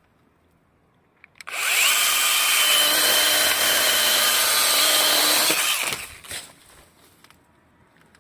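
HiKOKI pruning power tool switched on about a second and a half in, its motor whining up quickly and then running steadily for about four seconds before stopping abruptly.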